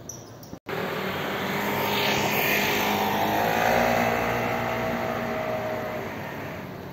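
A motor vehicle passing by: engine and road noise swell over about three seconds, then fade away.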